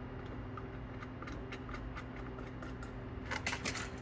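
Light metallic clicks and taps as the cylinder head is set down onto the engine, with a small cluster of clicks late on, over a steady low hum.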